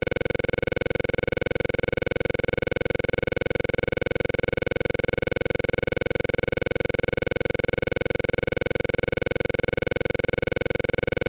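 A steady, unchanging buzzing drone made of a few fixed tones, pulsing rapidly and evenly.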